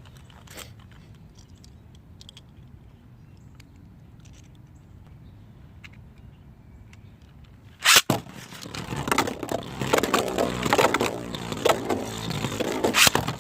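3D-printed Beyblade spinning tops. First come a few faint clicks as they are handled, then a sharp launch snap about eight seconds in. After that the tops spin, scrape and clash against each other and the stadium walls in a rapid clatter.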